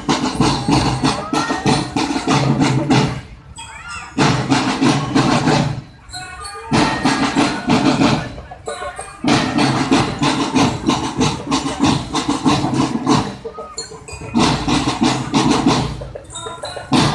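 Marching drum band playing, snare drums leading, in loud phrases a few seconds long broken by short pauses.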